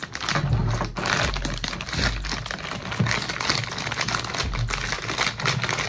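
Clear plastic packaging bag crinkling continuously as hands grip and handle it, a dense run of small crackles.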